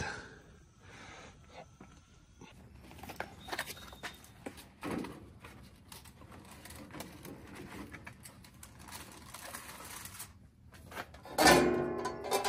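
Scattered light knocks and handling noises on the grill, then a loud clatter with a ringing tone about eleven and a half seconds in, as a metal grill part is set down.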